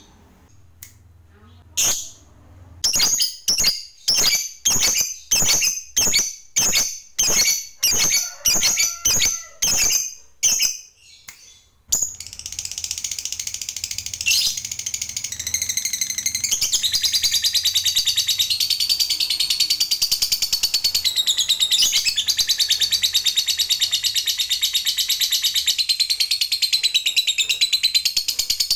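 A lovebird calls: first a run of separate sharp chirps about two a second, then from about twelve seconds in an unbroken, fast chattering trill that keeps going. This is the long continuous chatter that Indonesian keepers call "ngekek panjang".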